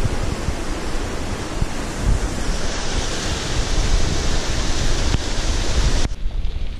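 Water rushing over a small creek cascade, a steady hiss with wind buffeting the microphone underneath. The rushing gets brighter about two and a half seconds in and changes abruptly to a duller rumble about six seconds in.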